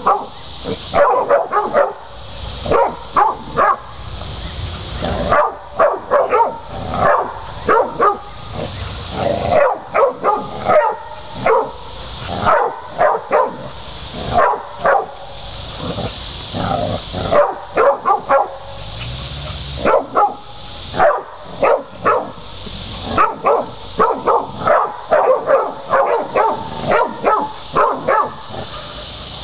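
Catahoula cur dogs baying penned hogs: quick, repeated barks in clusters, with short pauses between them.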